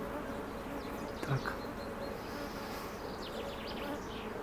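Many honeybees buzzing in a steady hum around the hives, a swarm of young bees making their mass orientation flights. A single faint tick about a second in.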